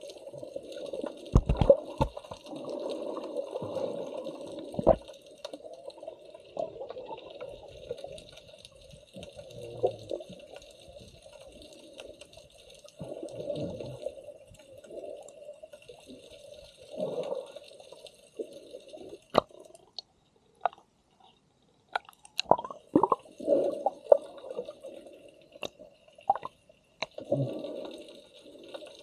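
Sea water sloshing and splashing around an action camera at the water's surface, coming in uneven surges with scattered sharp clicks. It goes almost quiet for a moment about two-thirds of the way through.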